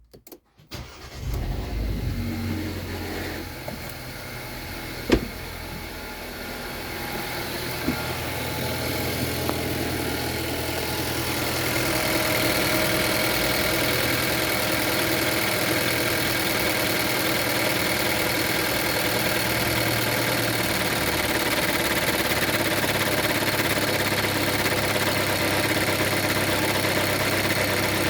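Geely Coolray engine starting about a second in, then running at idle. There is a sharp click about five seconds in. The sound grows louder until about twelve seconds in and then holds steady with a faint steady whine. This is the car's idle as recorded for its extraneous noises.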